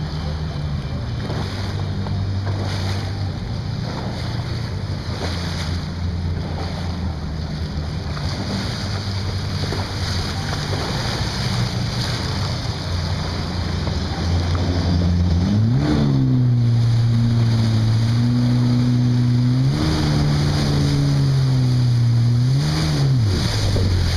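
Personal watercraft engine running over water and wind noise; about two thirds of the way in a louder engine note comes up and rises and falls in pitch a few times as the throttle is worked.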